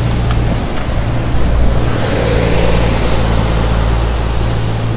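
Khlong Saen Saep canal express boat's diesel engine running with a steady low drone as the boat pulls away, over the rushing of its wake churning the canal water.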